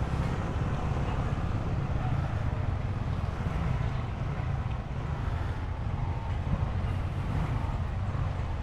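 Motor scooter running at steady riding speed with wind on the camera microphone, a constant low drone with road and wind hiss.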